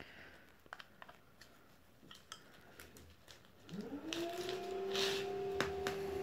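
Bypass pruning shears clicking and snipping through dry orchid stems and roots: a scattered series of short, sharp clicks. About two-thirds of the way in, a steady hum starts, rises in pitch and then holds, louder than the snips.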